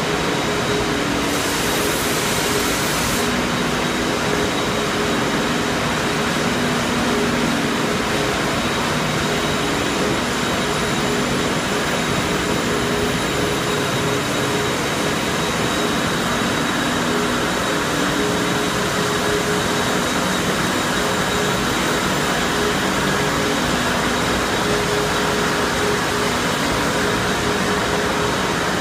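Dairy ultrafiltration and reverse osmosis membrane plant running: the steady, loud whir of its pumps and electric motors, with a few steady tones over the noise. A brief high hiss comes in about a second in and lasts around two seconds.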